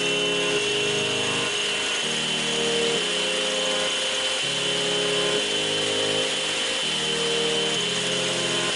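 Table saw running steadily with a high whine, its blade cutting a groove in wood.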